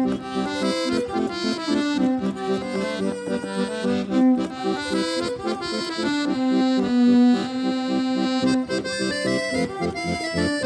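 Live folk band playing an instrumental tune: a melody that moves from note to note over a steady rhythmic accompaniment.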